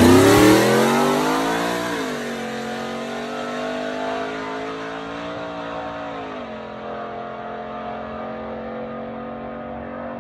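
OBS pickup truck's engine under full throttle off the drag-strip start line. Its pitch climbs and drops about two seconds in, climbs again and drops at about six and a half seconds, shifting up through the gears. It then holds steady and fades as the truck pulls away down the track.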